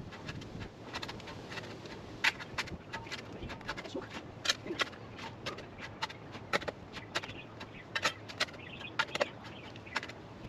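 Metal shovel scraping and scooping loose soil, heaping earth over an imu (Hawaiian underground oven) to seal it. Irregular short scrapes and light knocks, one or two a second.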